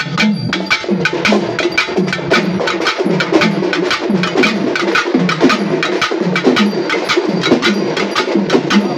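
Pambai, the paired cylindrical Tamil folk drums, played in a fast, steady rhythm of sharp stick strokes, several a second.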